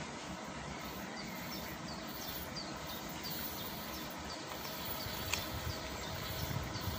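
A bird giving a long run of short, falling chirps, about three a second, over a steady outdoor background. Near the end the low rumble of the approaching electric freight locomotive begins to build.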